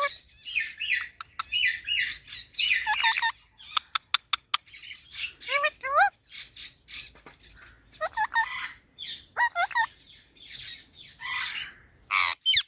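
Indian ringneck parakeet chirping and squawking in short harsh bursts, mixed with rising whistled calls. A few sharp clicks come about four seconds in.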